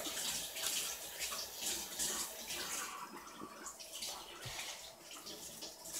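Elmer's glue pouring from a large bottle into a bowl, an uneven, irregular liquid pouring sound.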